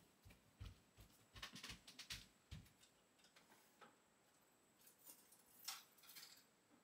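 Near silence: faint room tone with a few scattered soft clicks and taps.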